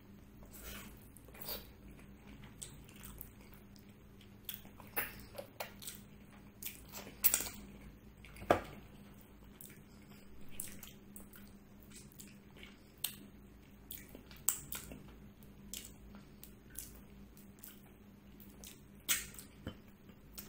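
Wet squishing and clicking of fingers mixing rice into mutton paya curry on a plate, in irregular short bursts with a couple of sharper clicks a little past the middle.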